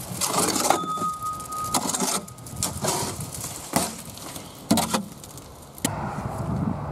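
Scraping and knocking as wet concrete is worked in around the base of a galvanized steel fence post, with several sharp knocks in the second half. A short steady high tone sounds about a second in.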